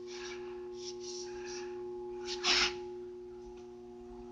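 A steady electrical hum made of several held tones, with one short, sharp breath about two and a half seconds in.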